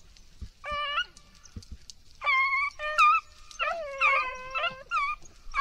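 Rabbit-hunting hounds baying in long, drawn-out howls. One short call comes just before a second in, then several long howls follow from about two seconds on, overlapping as more than one dog gives tongue.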